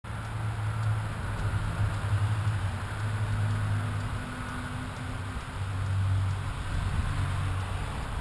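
Steady low rumble and hiss of riding noise picked up by a bicycle-mounted action camera: wind over the camera and tyres rolling on a concrete path, with road traffic mixed in.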